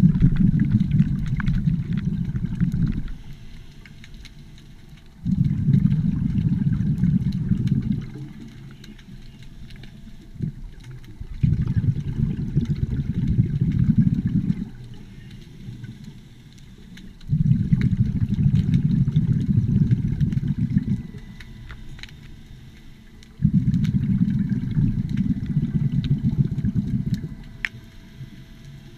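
Underwater scuba breathing: a diver's exhaled bubbles rushing out of the regulator in five rough, low rumbling bursts, one about every six seconds, each lasting three to four seconds, with quieter pauses between for the in-breath.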